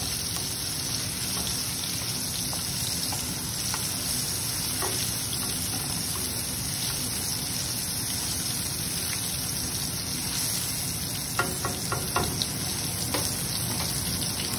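Tadka of garlic, cumin, tomato and whole dried red chillies sizzling in hot oil in a pan, a steady frying hiss, with a few sharp knocks near the end as it is stirred.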